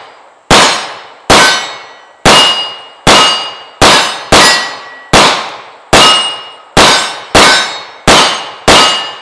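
CZ 75 P-01 9mm pistol fired about a dozen times at a steady pace, a little under a second between shots, each shot followed by the short ring of a steel target being hit.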